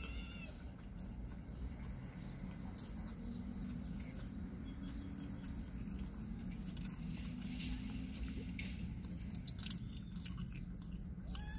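A person chewing a mouthful of barbecue bacon cheeseburger, with wet smacking and small crunches, over a low steady hum.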